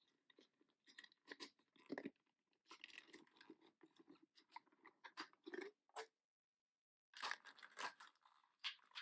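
Clear plastic toy packaging crinkling and crackling as a doll is pulled out of its plastic tube and unwrapped from its plastic sleeve. A run of short, sharp crackles, with a pause of about a second near two-thirds of the way through before more crackling.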